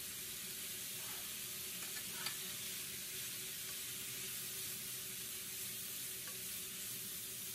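Sliced pork sizzling in hot oil in a frying pan as it is stirred with wooden chopsticks: a steady frying hiss, with one light click about two seconds in.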